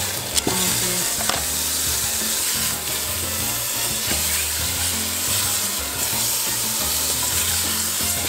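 Chicken breasts sizzling steadily as they fry in hot oil with onions and garlic in a stainless steel pot, stirred with a spatula. A few light knocks of the spatula against the pot in the first second and a half.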